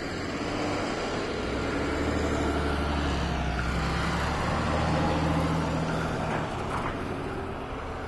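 Box delivery truck driving past close by on a snow-covered road, its engine hum building over the first few seconds and fading toward the end.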